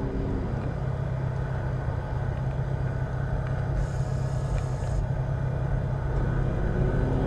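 Car engine and road rumble heard from inside the cabin in slow traffic: a steady low hum. A brief hiss comes in about four seconds in.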